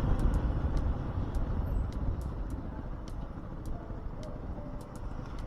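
Vehicle on the move: heavy wind rumble on the microphone with road and traffic noise, easing off slightly and dotted with light clicks.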